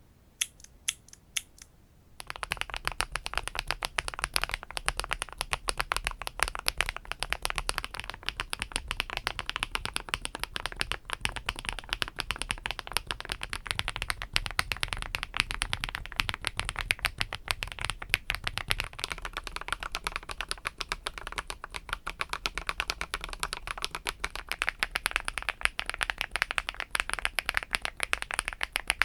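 Fast, continuous typing on mechanical keyboards fitted with HMX Pado V2 (Canglan V2) switches: a few separate keystrokes in the first two seconds, then a dense, unbroken run of key clacks. The typing is on a plastic-housing keyboard, changing to an aluminum-housing one near the end.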